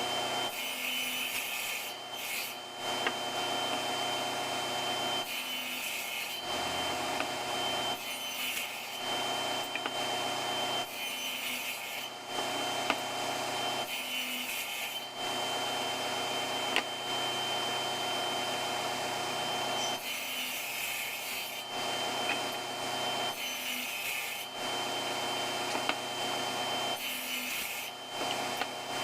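Table saw running steadily while it cuts wood to form tenons, the blade biting into the workpiece again and again, with the cut growing louder and hissier for a second or two every few seconds.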